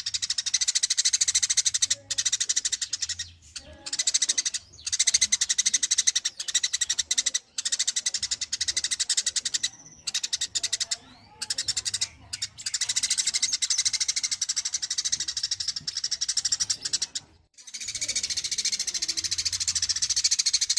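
Rapid, high-pitched chattering call, a fast even train of sharp notes, repeated in runs of a few seconds with brief pauses between them: a masteran recording of a small animal's call for training songbirds.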